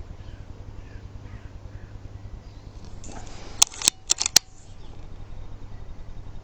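Four sharp mechanical clicks in quick succession about halfway through, over a low steady hum.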